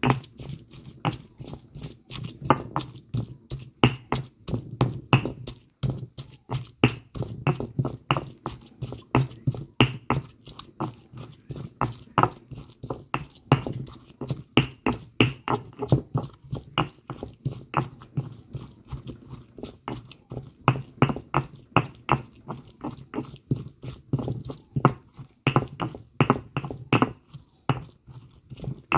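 Stone pestle grinding garlic, onion and salt in a volcanic-stone molcajete: a fast, uneven run of gritty knocks and scrapes, several a second.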